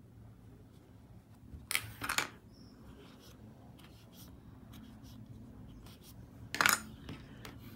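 Short rasping rustles of crochet yarn and fabric being worked with a tapestry needle and a wooden stick, the louder ones twice, about two seconds in and near the end, over a faint steady hum.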